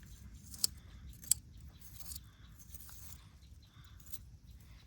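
Light handling noises: rustling and scraping with two sharp clicks about half a second apart, about a second in.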